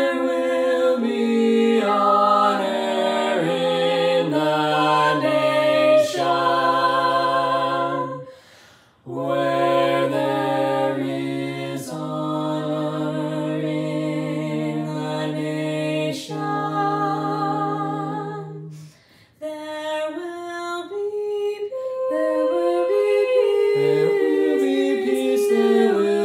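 Soprano, alto and bass voices singing a cappella in harmony, holding sustained chords over a low bass line. There are two short breaks in the singing, about eight and nineteen seconds in.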